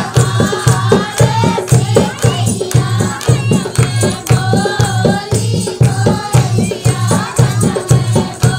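Dehati nach geet folk dance music: singing over a steady, quick drum beat.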